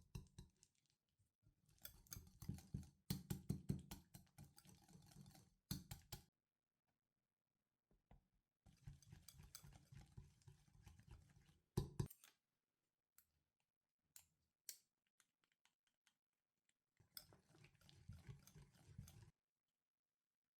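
Faint bursts of rapid light clicking and tapping from kitchen work, several seconds each, with a single sharper knock about twelve seconds in.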